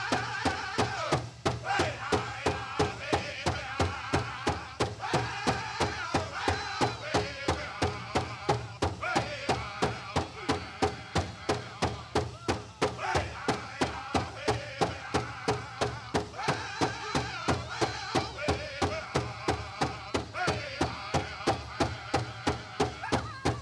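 Pow wow drum group: several singers striking one big drum together in a fast, even beat, about three beats a second, and singing a chicken dance song in unison over it.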